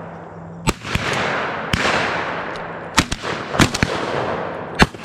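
A string of 12-gauge shotgun shots fired at doves, several in a few seconds: some sharp and close, others trailed by a long rolling echo that dies away over about a second.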